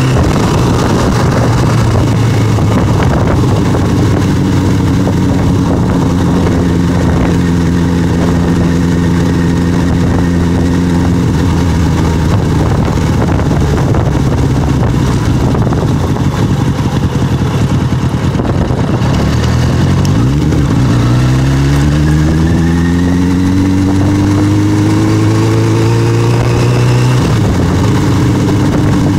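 Street motorcycle's engine running at a steady pace while riding. About twenty seconds in, the pitch dips and then climbs steadily as the bike accelerates, and it falls suddenly near the end.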